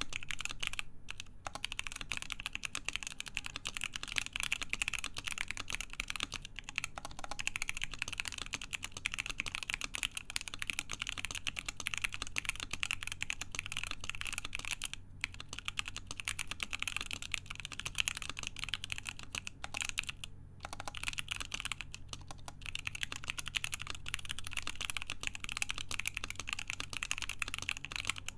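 Continuous typing on a Cannon Keys Savage65 mechanical keyboard with unlubed stock JWK Lilac linear switches, a full FR-4 plate and Hammerworks CRP Desko keycaps: a fast, dense run of key clicks with a few brief pauses.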